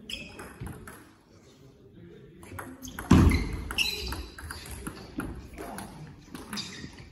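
Table tennis rally: the ball clicking off the bats and the table at a quick, uneven rhythm, with one heavy thump about three seconds in.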